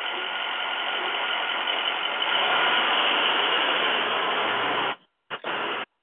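Steady rushing noise from a Ring video doorbell's microphone: outdoor ambience with a UPS delivery truck pulling away from the curb. It cuts off abruptly about five seconds in, then comes back twice briefly.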